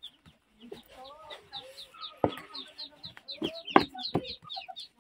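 Chickens clucking, with rapid, high, repeated peeping, and a few sharp knocks as a wooden spoon strikes the metal pot of stiff ugali being stirred; the loudest knock comes a little before the end.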